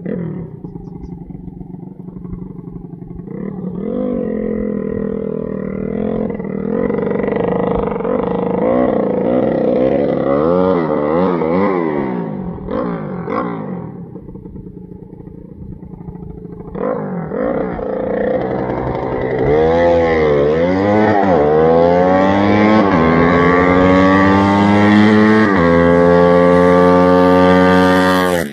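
Honda C50 four-stroke single fitted with a Takegawa 59mm big-bore kit, revved in a series of short blips, then accelerating hard through the gears. The pitch climbs and falls back at each of several shifts, and the engine grows louder as the bike approaches. The sound cuts off abruptly at the end.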